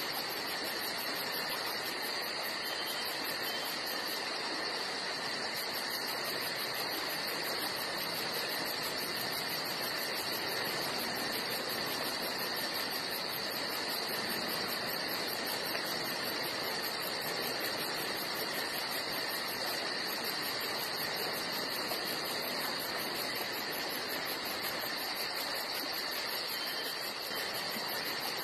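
Steady chorus of insects chirring, over a continuous hiss, with a fast-pulsing very high buzz on top; unchanging throughout.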